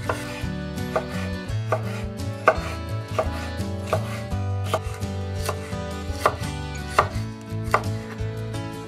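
Chef's knife chopping bell peppers on a wooden cutting board: sharp, evenly paced strikes, about one every three-quarters of a second.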